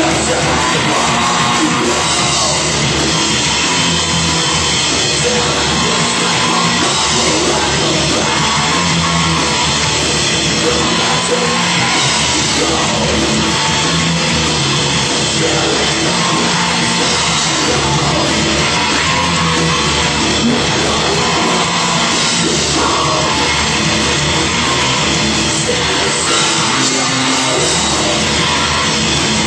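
Rock band playing a loud, heavy song live, with drums and yelled singing.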